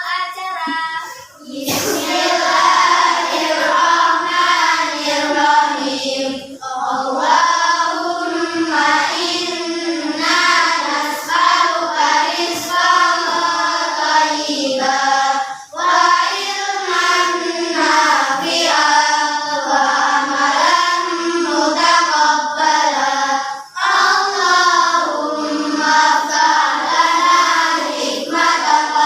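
A class of children singing a song together in unison, phrase after phrase with short pauses for breath.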